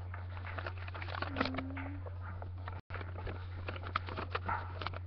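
Light rustling and small clicks of a paper invoice being handled, over a steady low electrical hum; a short steady tone sounds about a second and a half in, and the sound cuts out for an instant near the middle.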